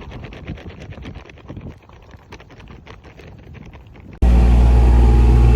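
Irregular light tapping of raindrops. About four seconds in, a sudden cut to a vehicle engine running loudly and steadily.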